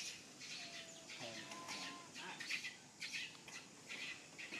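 Small birds chirping in quick, repeated high notes, with one short lower call a little over a second in.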